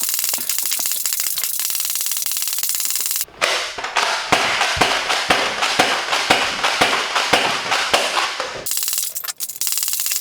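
Nerf Rival Apollo spring-powered ball blaster being cocked and fired rapidly, over and over, a fast run of sharp plastic clacks and cracks. It breaks off briefly about three seconds in and thins out near the end.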